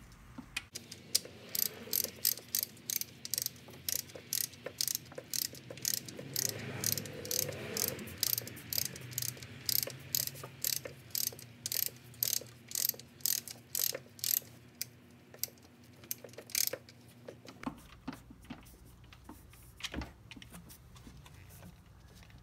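Hand ratchet clicking in an even rhythm, about three clicks a second, as it backs out a 17 mm engine oil drain plug. The clicking stops about three-quarters of the way through, leaving only a few scattered clicks.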